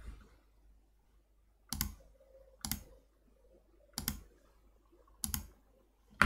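Computer mouse clicking: sharp single clicks about a second apart, four in a row and a fifth right at the end.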